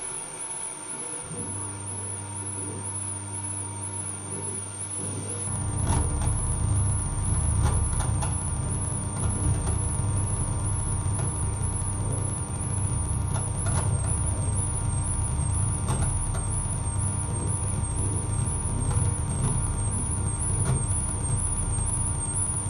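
Live electronic noise music from a tabletop rig of mixer, cables and effects boxes. A high tone wavers quickly up and down over a steady drone. A deeper, rougher rumbling layer comes in about five seconds in and gets louder, with scattered clicks.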